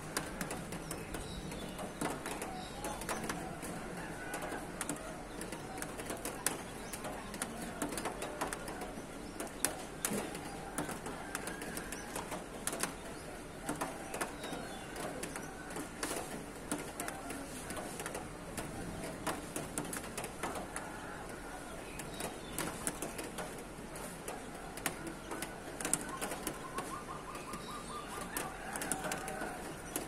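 Birds calling over one another, with doves cooing among them. Many small clicks run through it, and a quick trill sounds near the end.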